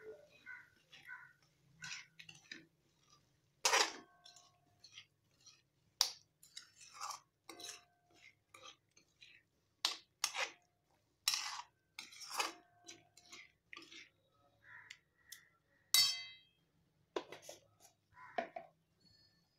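A metal spoon stirring thick curry gravy in a metal kadhai. It makes irregular scrapes and clinks against the pan's side and bottom, some of which ring briefly.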